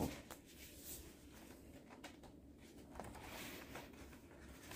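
Faint rustling and light handling of paper and cardboard record packaging, a little louder about three seconds in.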